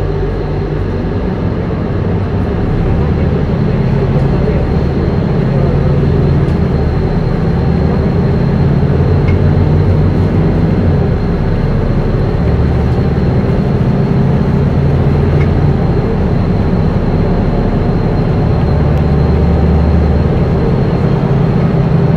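Route bus heard from inside the cabin while running, its diesel engine note changing pitch in steps several times as it accelerates and shifts gear.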